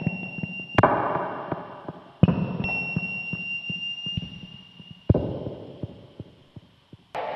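Electronic music: four sudden noisy hits, each fading away over one to three seconds, with a thin high held tone and light scattered ticks running under them.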